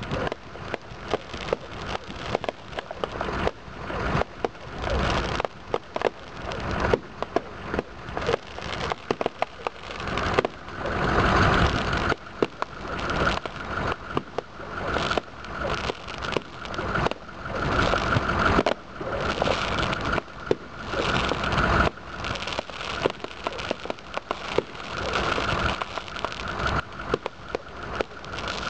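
Aerial fireworks firing a rapid string of shots, with popping and crackling bursts between the launches.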